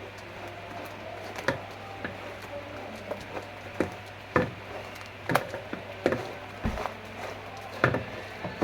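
Irregular clicks and knocks of a utensil against a strainer as blended pomegranate is pressed through it to separate the juice from the pulp, with one dull thump about seven seconds in.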